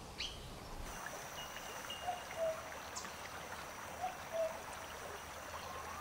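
Steady rush of flowing stream water. A bird gives a short, low two-note call twice, about two seconds apart.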